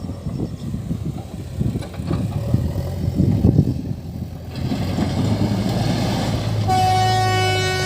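JCB 3DX backhoe loader's diesel engine working while loading railway ballast, uneven at first and then running steadily. Near the end a long horn blast begins.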